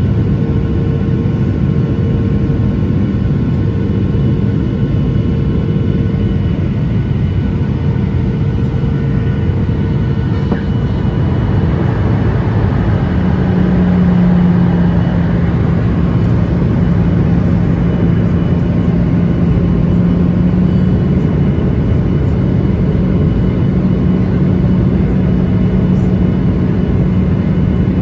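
Cabin noise of a Boeing 737-900ER airliner in flight: a steady rumble of engines and airflow carrying several constant hums. About halfway through, one hum fades and a deeper, stronger hum comes in as the noise grows slightly louder.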